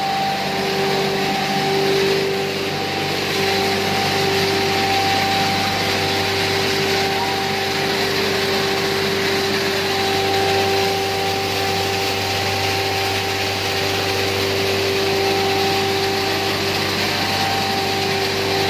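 ACM pulverizer mill running steadily while grinding maize into powder: a continuous machine hum with a steady whine over an even rush of air and grain.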